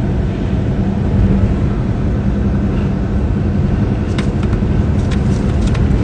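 Steady road and engine noise heard from inside a car's cabin at highway speed, a low rumble with a steady hum. A few light clicks come about four seconds in.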